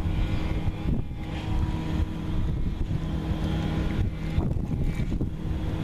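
Wind rumbling on the microphone over a steady low motor hum on open water.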